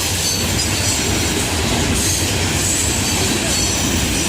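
Freight cars of a Florida East Coast Railway train rolling past: a steady rumble of steel wheels on rail with a faint high wheel squeal.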